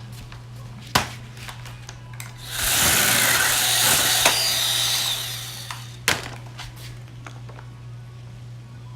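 Worx JawSaw 20-volt cordless mini chainsaw running for about three seconds as its chain cuts through a branch. A sharp click comes about a second before, and a sharp clack comes right after the cut ends.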